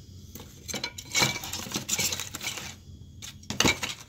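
Sticks of wood kindling knocking and clattering as they are handled at a brick rocket stove: quick clusters of sharp knocks about a second in and around two seconds in, and one loud knock near the end.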